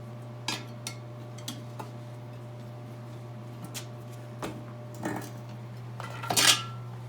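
Steel tools and a steel split rim clinking as the rim is worked into a tire: scattered light metal clinks, then a louder ringing clang near the end, over a steady low hum.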